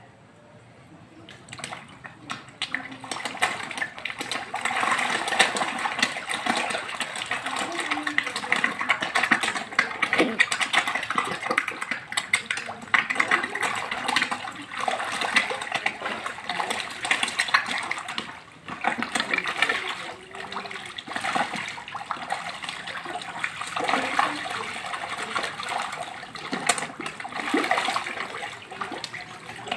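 A crowd of walking catfish (lele) thrashing and splashing at the surface as they tear at a piece of grilled chicken, a continuous churning of water that starts a couple of seconds in and dips briefly past the middle.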